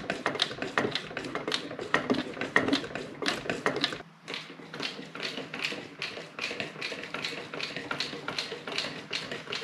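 Hand-operated fluid transfer pump on a bottle of automatic transmission fluid being stroked steadily, a short clicking stroke about three times a second, as fluid is pumped into the transmission's fill hole. There is a brief break about four seconds in.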